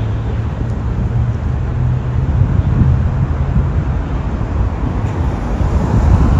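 Road traffic noise: engines of stopped and slow-moving cars running, with a steady low hum.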